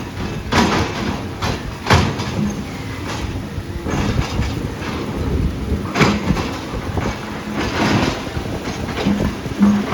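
Heavy earthmoving machine running with a steady low rumble, broken by several sharp metallic knocks and clanks.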